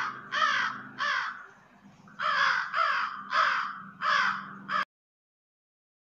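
House crow cawing: three caws, a short pause, then five more in quick succession, breaking off suddenly near the end.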